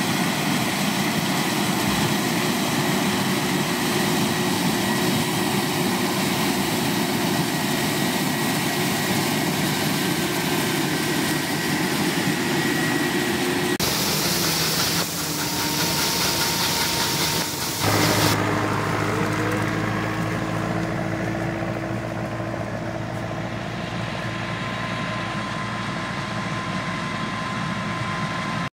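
Deutz-Fahr C6205 combine harvester running steadily under load while harvesting grain corn, a dense engine and threshing hum. For a few seconds in the middle it gives way to a loud hissing rush of shelled corn kernels pouring from the unloading spout into a trailer, then returns to a steadier, softer hum.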